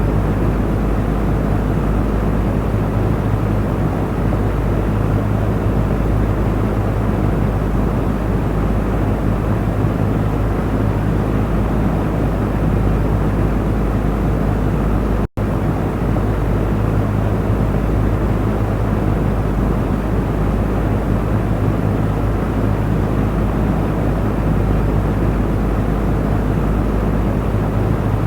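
Electric cooling fan running steadily: an even rush of air over a low motor hum, with a split-second dropout about halfway through.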